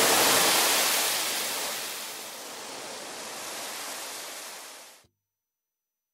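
Sea surf washing on a beach as a steady hiss that fades, then cuts off abruptly about five seconds in.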